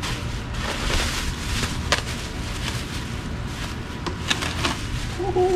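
Cardboard box and packing material rustling as an exhaust header is lifted out of its packaging, with a few sharp knocks: one about two seconds in and a small cluster near the end. A steady low rumble sits underneath.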